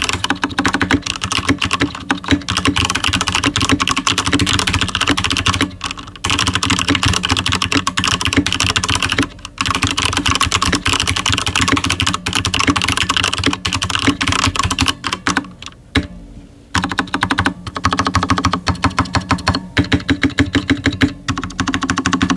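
Corsair K70 RGB TKL mechanical keyboard with stock Cherry MX Speed Silver linear switches and lubed stock stabilizers, typed on quickly and continuously. There are short pauses about six, nine and sixteen seconds in, and more spaced-out individual keystrokes near the end.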